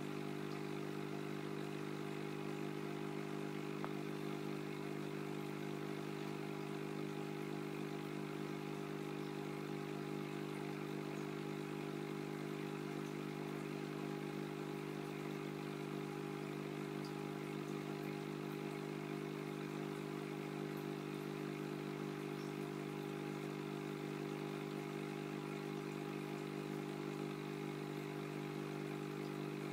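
Aquarium pump's steady electric hum, an even low drone that does not change.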